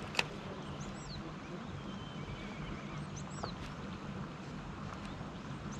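A few short, high bird chirps that fall in pitch, plus a brief wavering whistle, over a steady outdoor background with a low hum.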